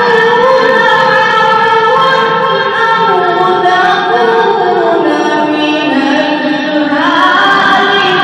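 Melodic Quran recitation (qirat) by a single voice, drawn out in long held, ornamented notes. The melody steps down in the middle and climbs again near the end.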